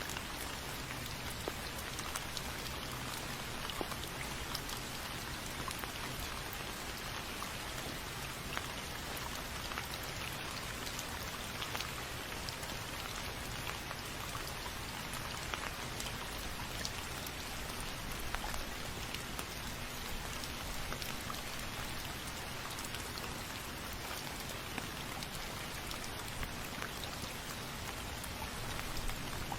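Steady rain falling on a surface, with individual drops ticking sharply through an even hiss.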